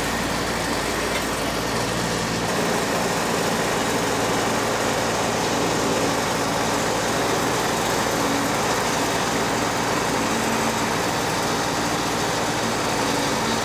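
Engine running at a steady speed, with a shift in its low hum about two and a half seconds in.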